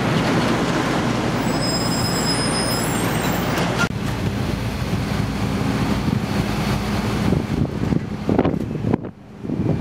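Open-top double-decker tour bus driving, its engine and road noise heard from the open upper deck. In the second half the sound grows gusty and uneven as wind buffets the microphone.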